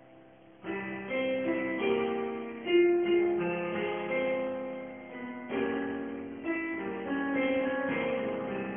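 Piano playing an instrumental passage of struck chords and melody notes, each note starting sharply and fading; it begins after a short pause, a little under a second in, and no voice is singing.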